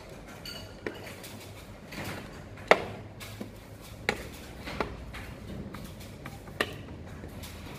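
Sharp clicks and taps of hand work inside an electrical panel board, about six of them spread over several seconds with the loudest nearly three seconds in, over a faint, steady low hum.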